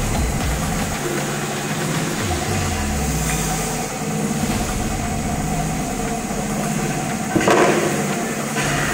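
Multisplitter frozen-food saw and its conveyor feed running with a steady mechanical hum. A short, louder burst comes about seven and a half seconds in.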